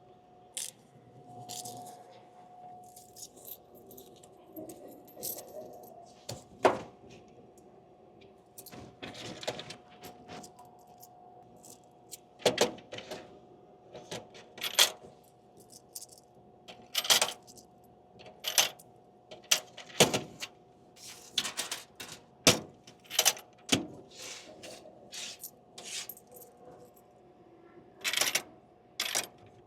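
Coins being loaded into a vending machine's coin changer: irregular metallic clinks and clatter, some loud, over a faint steady hum from the machine.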